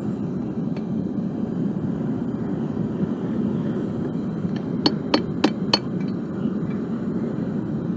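Forge running with a steady low rush, and about five seconds in four quick hammer blows ringing on metal at the anvil.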